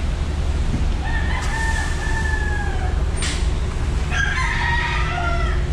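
Roosters crowing: one long crow about a second in and another, with two birds overlapping, about four seconds in. Under them runs the steady low rumble of the ferry's engines.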